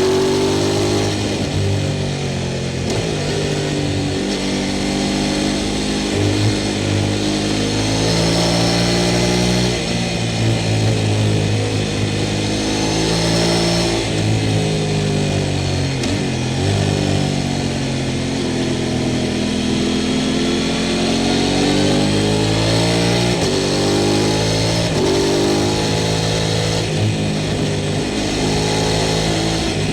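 Sport motorcycle engine running under way, its pitch rising and falling repeatedly as the throttle is opened and closed.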